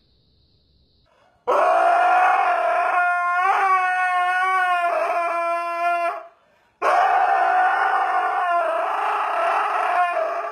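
Siberian husky howling: two long howls with a wavering pitch, the first starting about a second and a half in, the second after a short break just past the middle.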